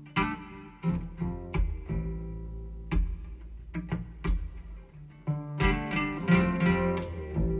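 Recorded music with plucked acoustic guitar notes over a low bass, played back through Yamaha NS-1000 loudspeakers driven by an EL84 push-pull tube amplifier and heard in the room.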